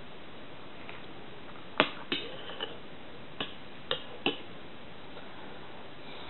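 Metal spoon clinking against a porcelain bowl while eating oatmeal: about six sharp clinks with a short ring, starting about two seconds in and spread over two and a half seconds, over a steady background hiss.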